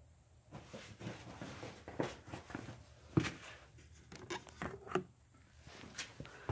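Scattered light clicks, knocks and rustling from a person crouching beside the car while handling the phone, with a sharper knock about three seconds in and another about five seconds in.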